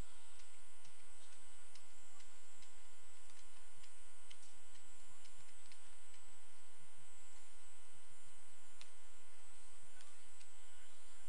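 Steady electrical mains hum with many overtones, with faint clicks scattered through it.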